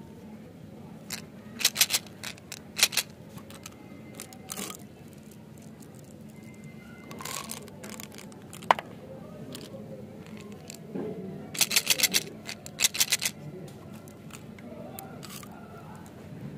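Hard sugar-coated candies rattling and clicking against a plastic candy tube as it is opened and tipped out into a palm, in several short bursts of rapid clicks, the densest about twelve seconds in.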